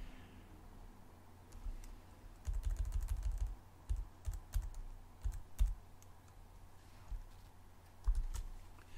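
Faint, irregular typing and clicking on a computer keyboard, in short clusters with pauses between them.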